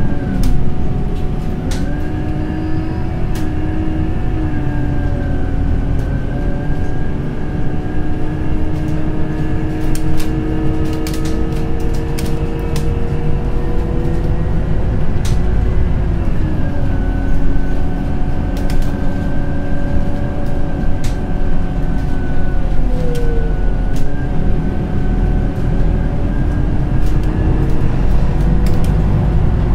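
Scania Citywide LFA articulated city bus with a compressed-natural-gas engine, heard from inside the passenger cabin while driving. A steady low rumble runs under whining drivetrain tones that shift pitch a few times, with light clicks and rattles scattered throughout.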